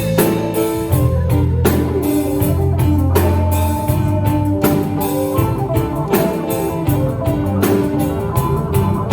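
A live band playing rock-style music: drum kit keeping a steady beat under bass and guitar.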